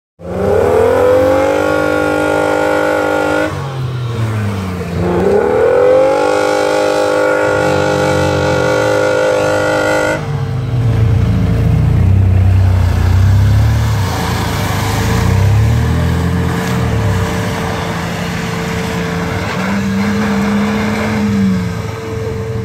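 Off-road 4x4 engine revving hard. It rises in pitch and holds twice, then drops off abruptly about ten seconds in. After that it revs up and down at lower pitch, under a steady whine.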